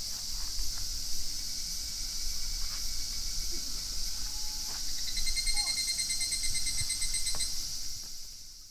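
Steady high-pitched chorus of insects in summer woodland, with a rapid trilling call joining in from about five seconds in for a couple of seconds. The sound fades out near the end.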